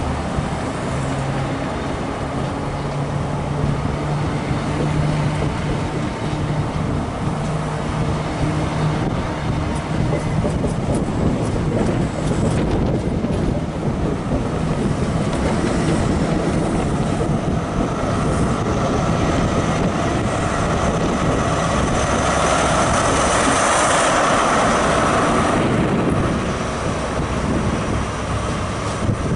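High Speed Train (InterCity 125) moving slowly along the platform: the Mark 3 coaches roll past over the steady drone of a Class 43 power car's diesel engine. The engine sound swells to its loudest past the middle and eases off near the end.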